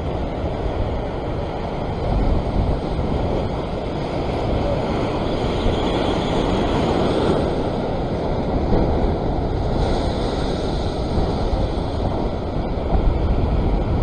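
Ocean surf surging and washing over rocks in a steady rush of whitewater, with wind buffeting the microphone.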